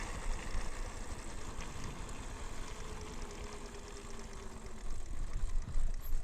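Electric bike being ridden: wind rumbling on the microphone with tyre and road noise, and a faint whine that slowly falls in pitch partway through. The noise swells louder near the end.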